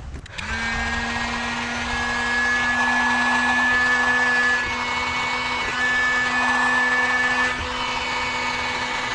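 Electric heat gun switched on about a third of a second in and running steadily: a fan-motor hum over a rush of blown air, aimed at heat-shrink tubing on the cables.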